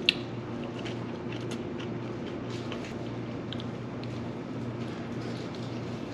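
Quiet eating at a table: light clicks of chopsticks and food containers and chewing, over a steady low hum. One sharp click comes right at the start.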